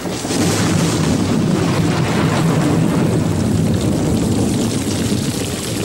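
Turbulent water rushing and splashing in a loud, steady wash of noise that eases off slightly near the end.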